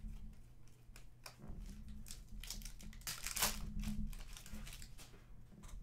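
Foil wrapper of a trading-card pack crinkling and tearing as it is opened by hand, with light clicks and rustles of the cards being handled. The loudest crinkle comes about three and a half seconds in.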